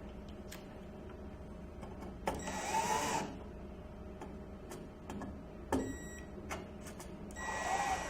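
Power screwdriver driving screws to fasten a mounting plate to a metal electrical box: two short runs of about a second each, the motor pitch rising as it spins up, with a sharp click between them.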